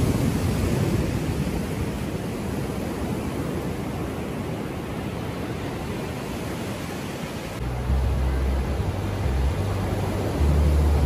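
Steady wash of ocean surf with wind on the microphone. From about eight seconds in, heavy low wind buffeting comes in and grows louder.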